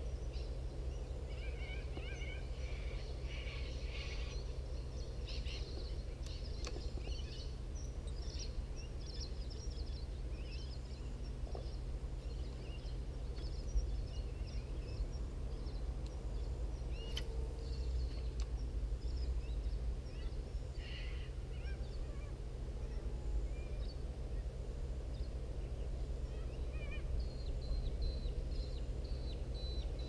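Birds chirping and calling in short bursts, busiest in the first several seconds and again near the end, over a steady low rumble. A couple of sharp ticks stand out partway through.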